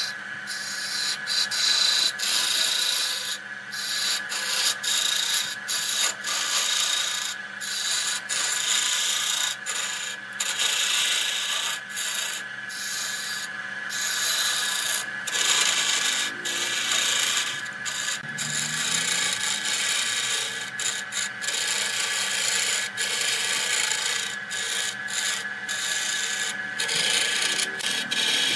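A steel turning tool cutting into a spinning areca-wood vase on an electric lathe: a rough scraping hiss that keeps breaking off for a moment and starting again as the tool lifts and returns, over the steady hum of the lathe motor.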